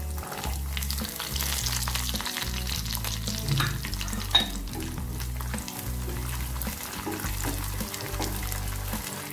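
Coconut pieces sizzling and crackling in hot coconut oil as they are stirred in a pan: the frying of coconut for tempering a curry. A single sharp clink about four seconds in.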